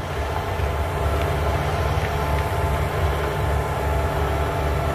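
Small garden tiller's engine running steadily while it works the soil.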